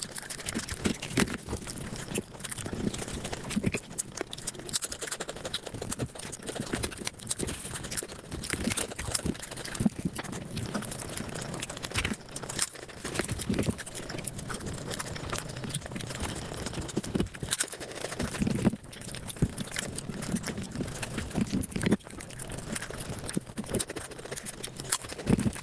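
Close-miked eating sounds sped up about five times: chewing, lip-smacking and mouth clicks running together into a fast, dense patter.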